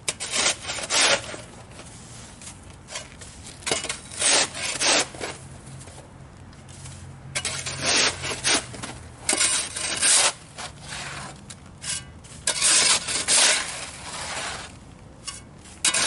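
Shovel scraping snow and ice off a surface: a series of rasping scrapes at irregular intervals, one every second or two.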